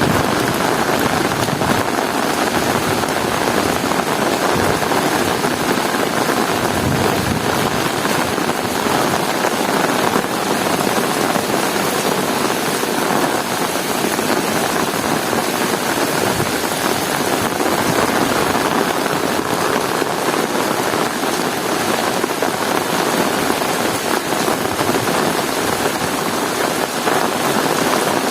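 Heavy rain falling steadily, a dense even hiss of rain on hard surfaces.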